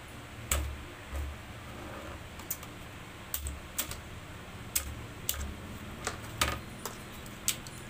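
Kitchen knife chopping and cracking raw crabs on a plastic cutting board: about ten irregular sharp knocks, several with a dull thud under them.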